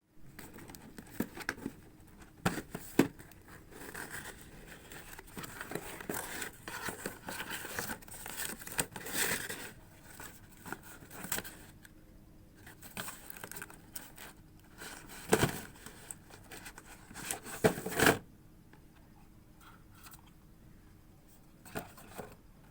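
Smartphone box and its packaging being unboxed by hand: rustling, crinkling and tearing with sharp clicks and knocks of the box. It goes quieter about four seconds before the end, with only a faint tick or two.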